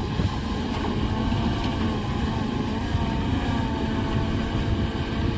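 Heavy diesel earthmoving machinery running steadily: a deep engine rumble with a faint whine that drifts slightly in pitch.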